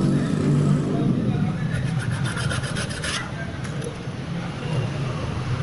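Rapid, rhythmic rubbing or rasping strokes on a shoe as it is worked on by hand, about seven strokes a second for a second and a half in the middle, over a steady rumble of street traffic.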